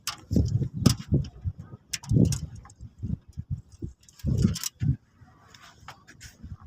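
Birds at a feeder close to the microphone: irregular low thuds and bumps mixed with sharp taps and scratches, in uneven clusters with short quiet gaps between them.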